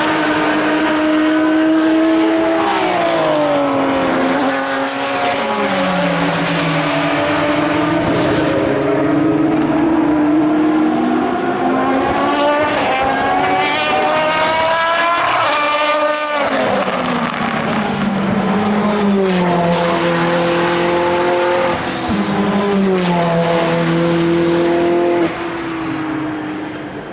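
Racing cars' engines on track, several overlapping: revs drop in a series of steps as the cars brake and downshift for a corner, then climb steeply and cut off sharply midway, followed by another run of stepped downshifts. The sound fades somewhat near the end.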